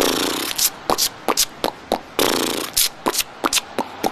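A person beatboxing with the mouth: a quick, uneven rhythm of sharp clicks and pops, with a longer hissing, buzzing burst at the start and another about two seconds in. So loud it would hurt people's ears.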